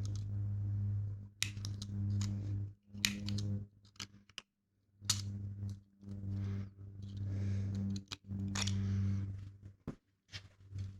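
A steady low electric hum that starts and stops about eight times in short runs, with sharp metallic clicks of tools being handled in between.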